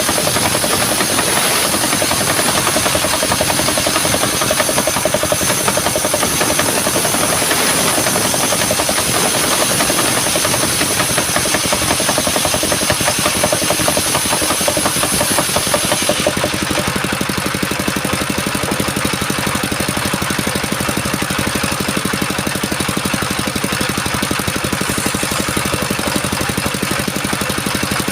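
Engine-driven circular sawmill blade ripping a coconut-wood log, with a steady engine running under a loud high cutting hiss. A little past halfway the hiss drops away, leaving the engine and free-spinning blade running without load.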